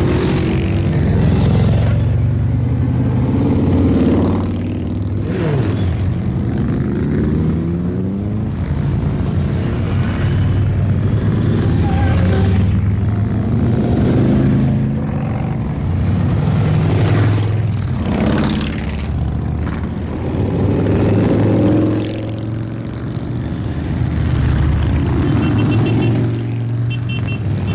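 A steady stream of motorcycles, mostly Harley-Davidsons, riding past one after another, their engines swelling and falling in pitch as each group goes by.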